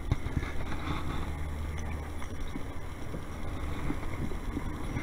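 Wind rumbling on the microphone, with a few faint light knocks from the kayak.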